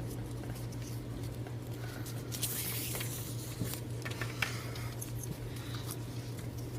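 Nylon paracord being handled and pulled through cobra-braid knots: soft rustles and small scratchy clicks, with a brief swish of cord sliding about two and a half seconds in, over a steady low hum.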